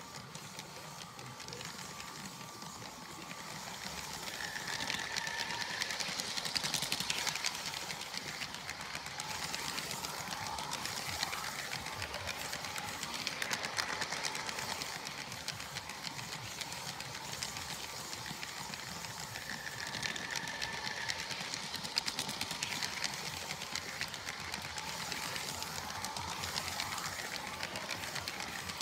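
Small electric motor of a Lego train running steadily, with a fast, continuous clatter of its plastic wheels over the Lego track joints. A brief high squeal comes twice, and there is one sharper click later on.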